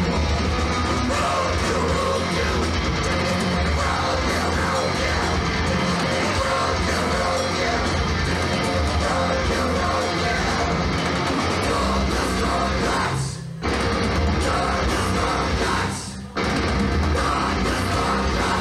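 Heavy metal band playing live, with distorted guitars and a full drum kit, captured on a Hi8 camcorder. The playing stops briefly twice, about thirteen and sixteen seconds in, then comes straight back.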